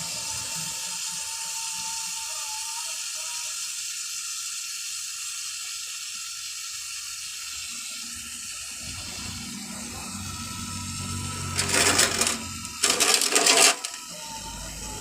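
Gas torch flame hissing steadily while heating a refrigerator evaporator's aluminium-to-copper pipe joint, with two short, loud, harsh bursts of noise near the end.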